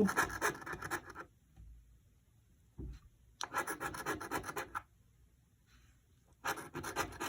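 Lottery scratch-off ticket being scratched: the coating rubbed off in quick back-and-forth strokes, in three bouts of about a second and a half each with short pauses between.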